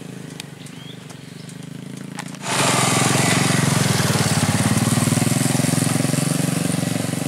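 Small motorcycle engines running at low speed along a rough dirt track. About two and a half seconds in, the sound jumps much louder: a motorcycle engine running close by with a rushing hiss over it.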